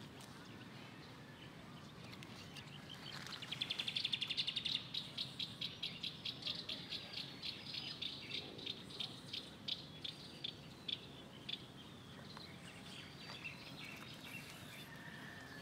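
A bird calling: a fast run of short, high chirps starts about three seconds in, then slows to a few notes a second and fades out after about eight seconds.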